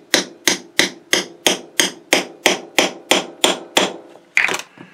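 Steady light hammer taps on a punch, driving a motor bushing into the housing of a Singer 201-2 potted sewing-machine motor. About three taps a second, each with a short metallic ring. The taps stop shortly before the end, followed by a brief scrape.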